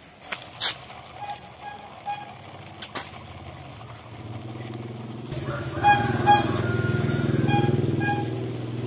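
An engine running steadily with a low hum, coming in suddenly about five seconds in, with a few short high beeps over it. Before that there are only faint clicks and light splashing.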